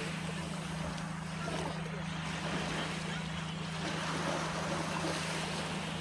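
Small sea waves washing onto a sandy beach, a surging hiss that swells and eases over a few seconds, with a steady low hum underneath.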